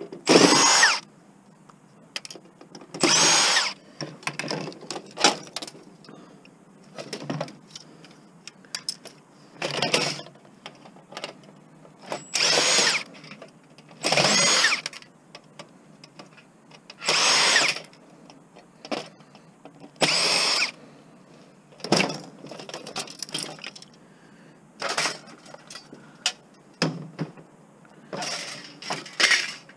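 Cordless drill driving screws out of TV circuit boards and sheet-metal shielding: about nine short whirring runs of a second or so each, with small knocks between them.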